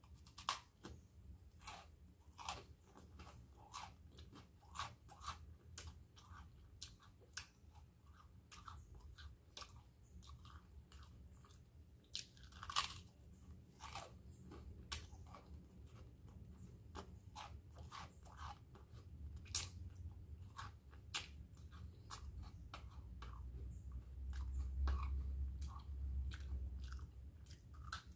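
Close-up crunching and chewing of crisp toast spread with chocolate cream, with sharp, irregular crunches about once a second. A low rumble swells near the end.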